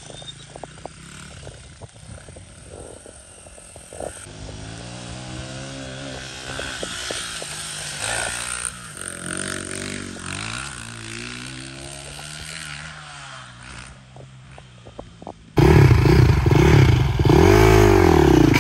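A small Honda 80 dirt bike's engine being ridden, its pitch rising and falling with the throttle. At about 15 and a half seconds a GasGas dirt bike's engine takes over, close and much louder, revved up and back down once near the end.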